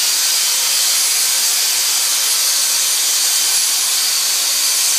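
Dyson cordless handheld vacuum running steadily with a crevice nozzle: an even, airy hiss with a thin high whine.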